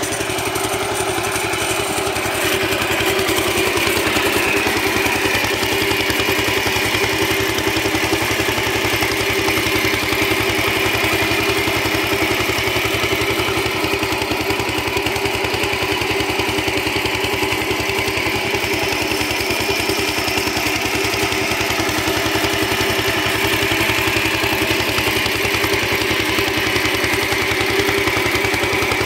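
Small stationary engine running steadily, belt-driving an irrigation water pump.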